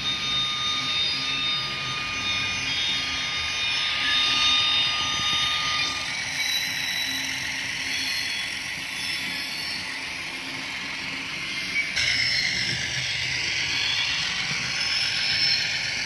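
HO-scale Fiat ALn 556 railcar model running along the track, its DCC sound decoder playing diesel railcar engine sound through the small onboard speaker, hissy and high-pitched. A steady high whine stops about six seconds in, and the sound changes abruptly about twelve seconds in.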